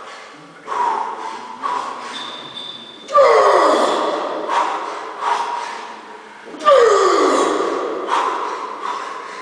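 A man breathing hard between reps of a heavy barbell back squat set: quick sharp breaths, with two loud forceful exhales about three and a half seconds apart, each falling in pitch.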